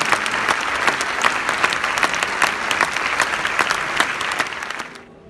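A large audience applauding with dense, continuous clapping that cuts off suddenly just before the end.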